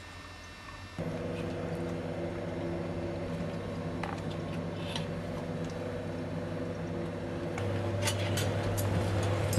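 Steady mechanical hum made of several level tones, switching on abruptly about a second in and growing louder near the end, with a few light clicks over it.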